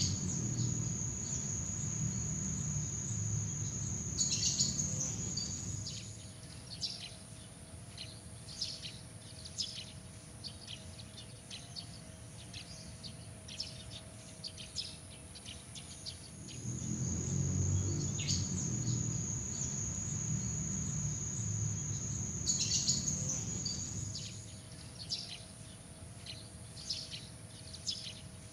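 Looped nature ambience of insects and birds. A steady high insect trill over a low rumble gives way after about six seconds to quick, scattered small-bird chirps over a higher insect whine. The same sequence comes round again a little past the middle.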